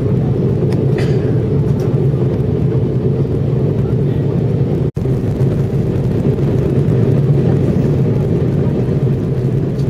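Steady drone of an airliner's cabin in flight: engine and airflow noise, heaviest in the low range, cutting out for an instant about halfway through.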